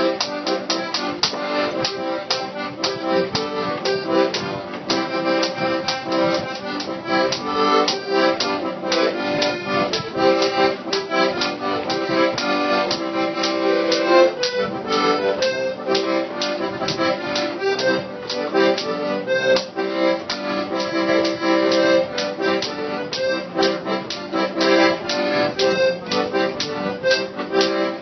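Accordion playing a tune, melody over chords with a steady rhythm.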